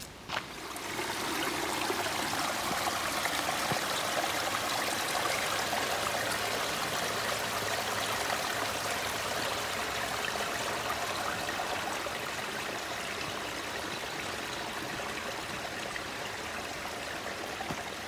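Creek water running and trickling steadily, coming up about a second in.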